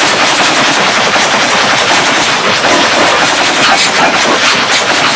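Loud, harsh crackling noise made of rapid, dense clicks.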